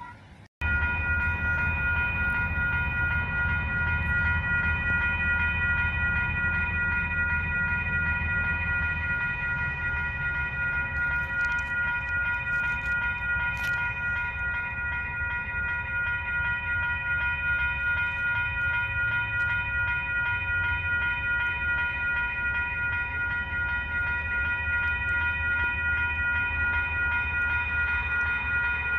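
Level crossing warning bells ringing continuously in a fast, even pulse as a diesel-hauled train approaches, over a low rumble. The sound cuts in sharply about half a second in.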